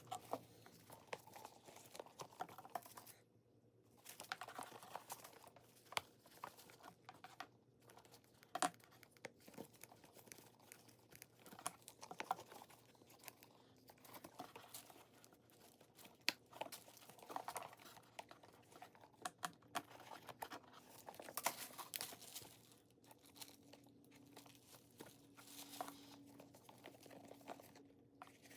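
Quiet crinkling and rustling of unboxing packaging handled by hand, with scattered small clicks and taps.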